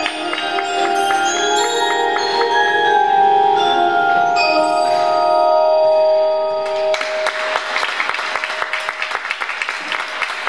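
Music of struck, ringing tuned percussion holding chords, then from about seven seconds in a dense patter of clapping over one held note.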